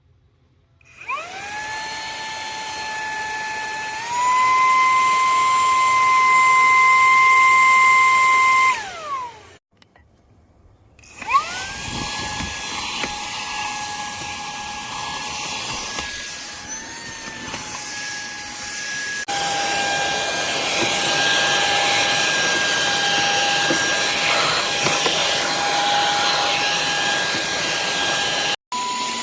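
Wkzay handheld cordless vacuum's small brushless motor running with a high, steady whine. It spins up about a second in, steps up to a higher pitch at around four seconds, then winds down and stops. It is switched on again a couple of seconds later and runs on, its pitch shifting slightly now and then.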